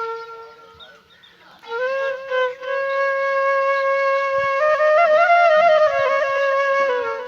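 Background music: a solo flute-like wind melody of long held notes and short stepping runs, breaking off briefly about a second in.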